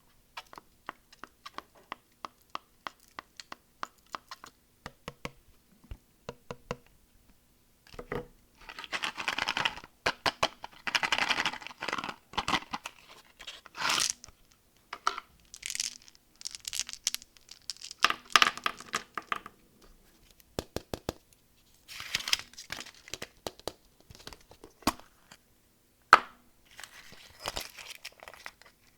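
Candy wrappers being handled and unwrapped. A run of light taps and clicks comes first, then the wrappers crinkle and tear in repeated bursts through the rest.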